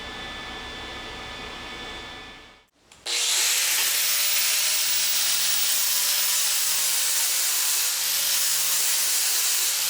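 A low steady shop hum, then after a cut about three seconds in, a power grinder grinding metal: a loud, even hiss that runs on without a break.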